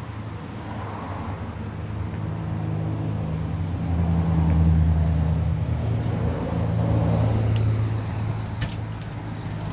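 A road vehicle's engine running close by, a low hum that grows louder to a peak about halfway through and then eases off. A few short sharp clicks come near the end.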